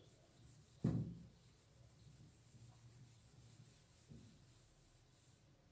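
Whiteboard duster rubbing across a whiteboard as the writing is wiped off, in faint repeated strokes, with one thump about a second in.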